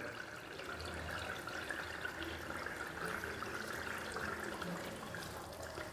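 Yogurt chutney simmering in oil in a pan, a soft steady bubbling sizzle. The oil has separated to the surface, a sign the chutney is nearly cooked.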